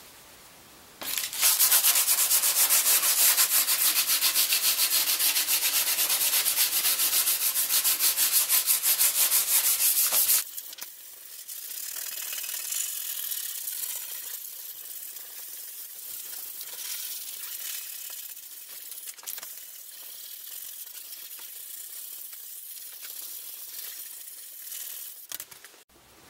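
Sandpaper rubbed by hand over the cured epoxy on an EPS surfboard, roughing it up so new epoxy will adhere. The strokes go back and forth quickly. They are loud for the first ten seconds or so, then lighter and quieter.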